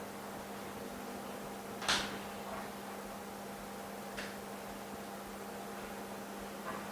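Steady electrical hum, with a sharp click about two seconds in and two lighter clicks later.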